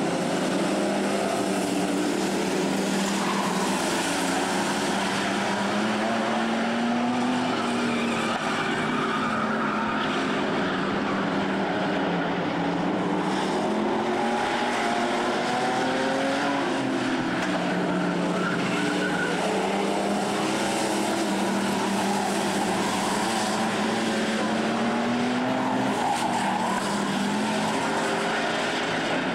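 Several figure-eight race car engines running on the track, their pitch rising and falling again and again as the cars accelerate and ease off around the circuit.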